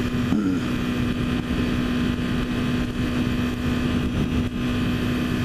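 Honda CBR250R's single-cylinder engine running at a steady cruise, a constant drone under loud wind rushing over the microphone.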